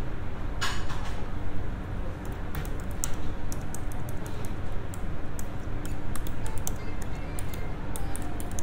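Metal clicks and clinks as an espresso machine's portafilter is taken out, handled and fitted back into the group head, with a sharper knock about a second in. A steady low hum of the machine and café runs underneath.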